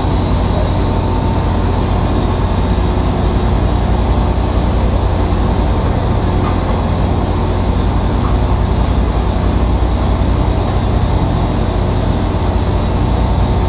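Boat engine running steadily: a loud, even low drone with a thin steady whine above it.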